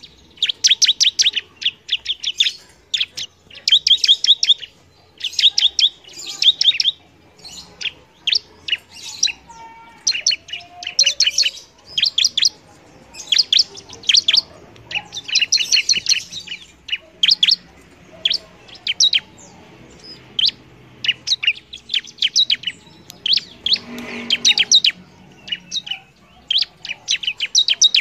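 Bar-winged prinia (ciblek) singing energetically: rapid volleys of sharp, high chirps and trills, one after another with only brief pauses between them.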